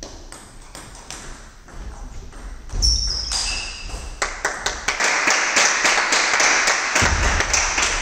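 Table tennis ball clicking off bats and the table in a rally. The clicks come in quick succession in the second half.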